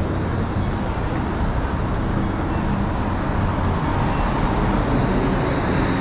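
Steady city street traffic noise, with cars passing on a rain-wet road and the tyre hiss growing a little stronger in the second half.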